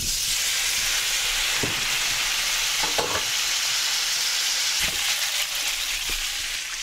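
Pasta sizzling hard in a hot pan of rendered guanciale fat and starchy pasta water, a steady hiss that starts suddenly, with a few light knocks of a utensil against the pan while it is stirred.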